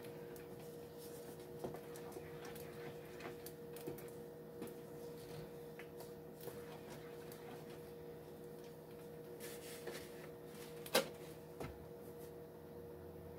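Wooden spoon scraping and tapping against a nonstick skillet as a thick white flour-and-milk sauce is stirred, faint and irregular, over a steady electrical hum. A sharper knock comes about eleven seconds in.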